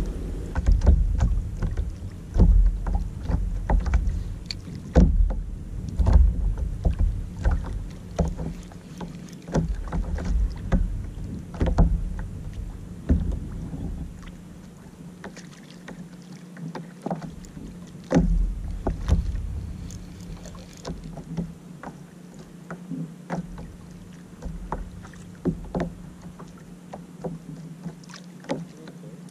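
Small waves lapping and slapping against a kayak's hull in irregular knocks, with wind rumbling on the microphone for about the first half.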